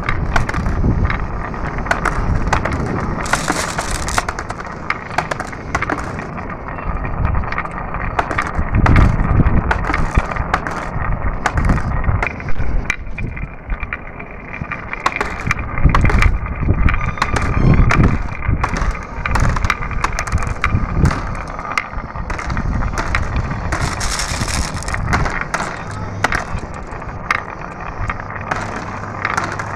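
Marbles rolling down a marble run track, a continuous rolling rumble with many sharp clicks as they knock against the track and each other.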